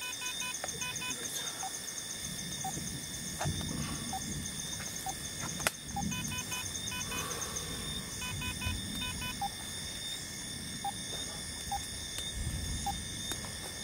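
Night-time outdoor ambience: a steady chorus of insects with a fast ticking in the first few seconds, repeated short chirping calls, and soft rustling of people handling things on a tarp close by, with a single sharp click about six seconds in.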